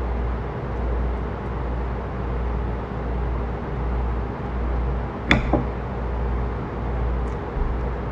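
Steady low rumble with a faint hum underneath, and a metal fork clinking twice against a ceramic salad bowl about five seconds in.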